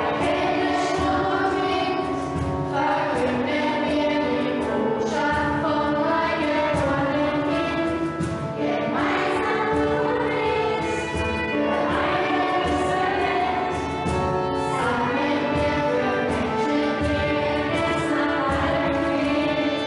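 A choir singing a song, several voices holding notes together.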